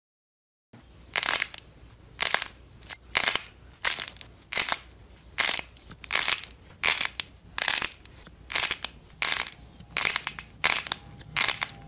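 Glossy pink slime cubes squeezed and pressed between fingers, giving a rapid series of short crackling squishes, about two or three a second, beginning just under a second in.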